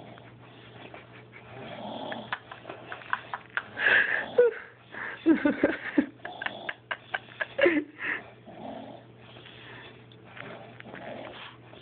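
A man snoring while asleep, with soft rasping breaths about once a second. From about two to eight seconds in it turns louder and irregular, with sharp clicks and short sliding pitched sounds, before settling back into quieter snores. A steady low hum runs underneath.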